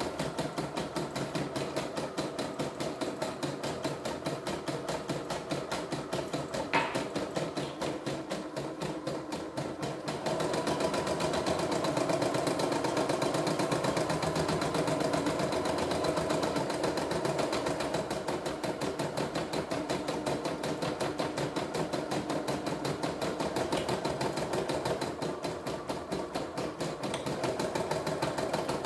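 CNY E960 embroidery machine stitching a design, with rapid, even needle strokes. It gets a little louder from about ten seconds in, and there is one sharp click about seven seconds in.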